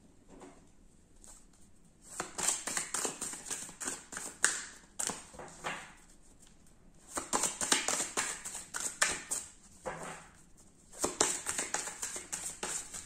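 Deck of oracle cards shuffled by hand: quick flurries of card clicks and rustles in three bursts, starting about two seconds in, around seven seconds in and about eleven seconds in.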